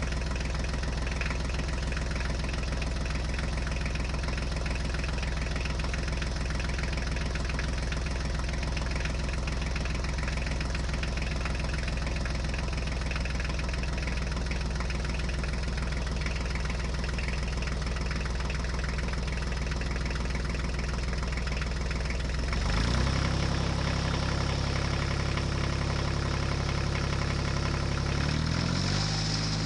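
Heavy engine idling steadily, its pitch stepping up about 23 seconds in and shifting again near the end.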